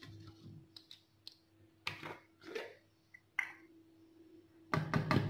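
Stainless-steel wire whisk in dry flour against a plastic bowl: scattered light clicks and short scraping rustles, then a louder cluster of knocks near the end.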